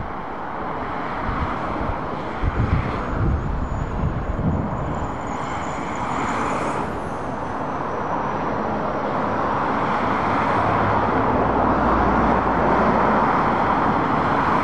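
Road traffic noise of cars, a van and a coach travelling along a dual carriageway, with tyre and engine noise growing louder as the coach draws near. A few low thuds come about three to four seconds in.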